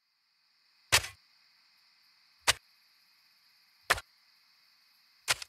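Sound effect of a shovel digging: four sharp strikes into the ground, about a second and a half apart, over a faint steady hiss.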